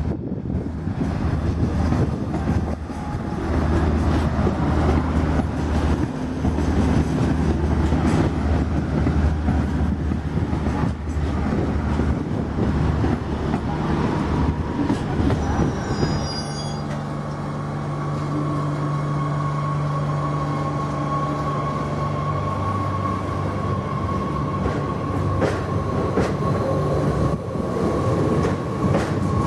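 SNCF X72500 diesel railcar passing through the station, its diesel engines droning over the rumble of the wheels. About halfway through, a second train takes over, running with a steady electric hum and a higher whine, and a brief high squeal comes as it changes over.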